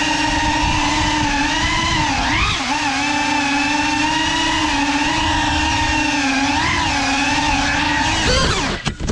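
Cinelog 35 cinewhoop FPV drone's motors and ducted propellers running with a steady whine, the pitch dipping and recovering briefly about two and a half seconds in and again later, rising near the end and then cutting off abruptly.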